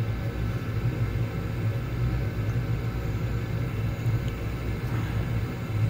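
Oil-fired boiler running: a steady low rumble from the burner with its motor hum.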